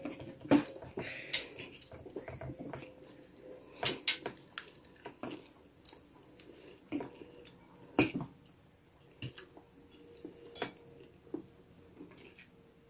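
Eating sounds close to the microphone: irregular clinks and scrapes of a metal fork on a ceramic plate of instant noodles, between wet mouth sounds of eating.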